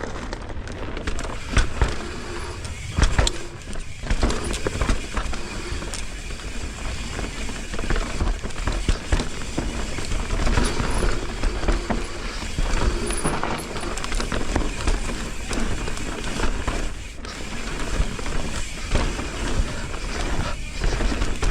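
Mountain bike being ridden over a dirt trail: tyres rolling and crunching on dirt, and the bike rattling and clattering over bumps. A low rumble of wind buffets the mic the whole way through.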